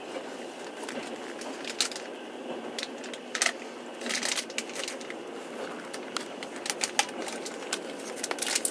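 Passenger train running, heard from inside the carriage as a steady noise, with irregular sharp clicks and crackles scattered through it, the strongest about three and a half seconds in and near the end.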